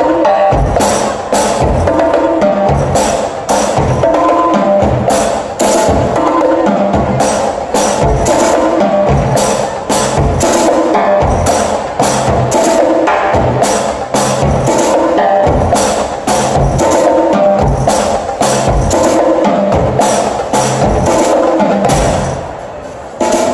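Live drum ensemble of snare and tom drums, cymbals, large bass drums and a hand drum playing a loud, driving rhythm together, with a short dip in level near the end.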